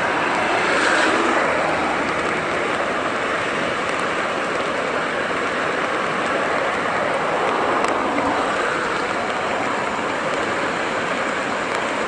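River water rushing past in a steady, dense roar of noise, the river running under an approaching typhoon.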